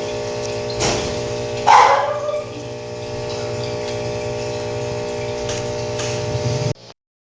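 A sick German Shepherd gives two short, sudden vocal sounds, about a second and two seconds in, the second one louder, over a steady hum. The sound cuts off abruptly near the end.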